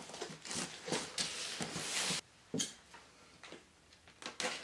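Cardboard shipping box being handled: a scraping, rustling noise for about two seconds, then a few light knocks as it is moved and set down.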